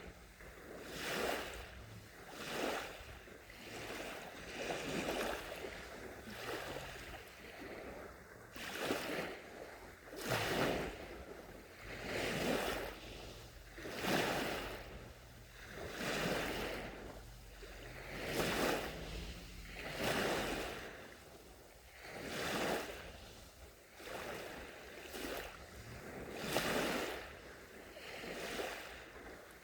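Small, gentle sea waves breaking and washing onto a sandy shore, one soft rush of surf about every two seconds.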